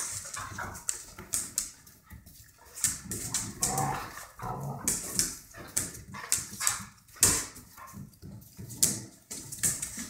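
A puppy and a larger dog play-fighting: short vocal sounds from the dogs amid scuffling and many quick, sharp clicks of claws on a tile floor.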